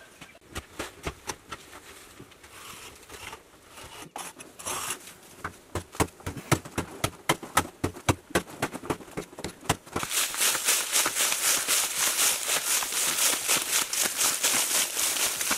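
A hand tool striking and scraping into packed earth in a quick run of sharp hits. About two-thirds of the way through it changes to a denser, rapid crunching of digging in stony, gravelly soil.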